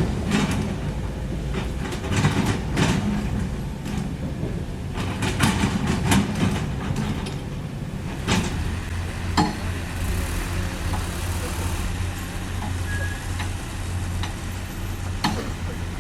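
Heavy earthmoving machine's diesel engine running steadily, with a series of sharp metallic clanks and knocks through the first half and a couple more near the end.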